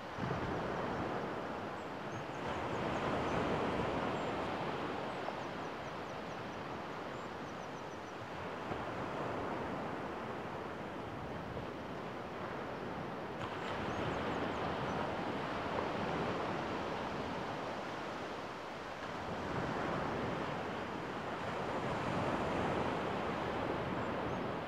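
Gentle surf on a sandy beach, small waves breaking and washing in, swelling and easing every few seconds.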